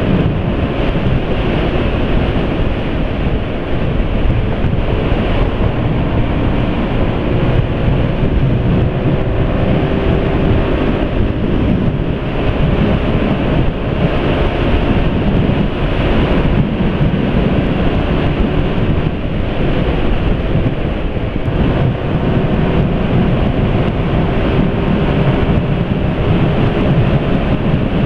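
Wind buffeting the microphone over the steady drone of a Yamaha automatic scooter's engine running at road speed, its pitch drifting slowly up and down.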